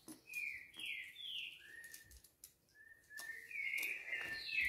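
High whistled calls: a quick run of short rising and falling whistles in the first second and a half, then a longer whistle near the end, with faint clicks of handling.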